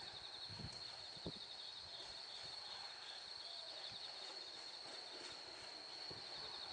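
Faint ambience dominated by a steady high-pitched insect trill, with a few soft knocks.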